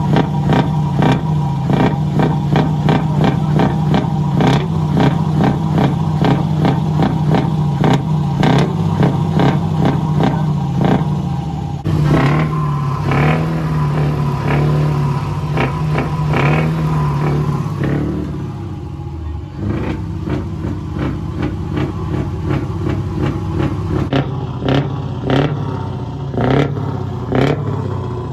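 Scania 164L's 580 V8 diesel on a straight-pipe exhaust, running loud and being revved repeatedly in sharp blasts about twice a second. In the middle the pitch rises and falls as the engine is revved up and let back down.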